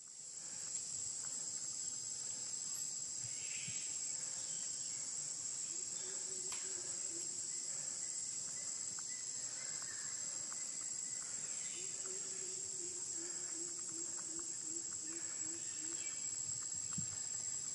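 Insects buzzing steadily in a high-pitched, unbroken chorus. A faint low pulsing sound comes in briefly twice beneath it.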